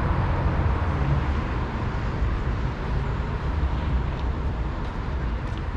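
Steady outdoor city noise: a continuous low rumble of road traffic with a constant background hiss.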